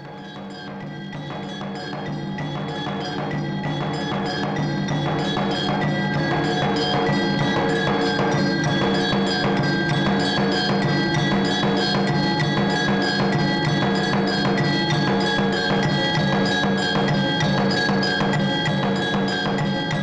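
Temple bells ringing in rapid, continuous strikes over a steady ringing tone, with a regular percussive beat. The ringing grows louder over the first few seconds and then holds.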